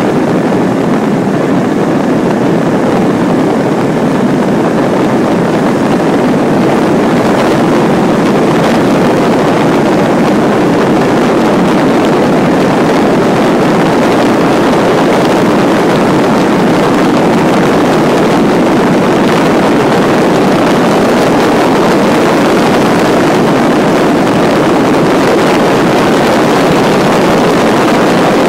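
Steady, loud rush of airflow around a glider's cockpit in flight, with no engine note.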